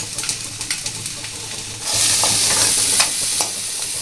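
Chopped spring onion greens and onion sizzling in hot oil in a steel kadhai, with a steel spoon clicking and scraping on the pan as it stirs. The sizzle turns louder about two seconds in.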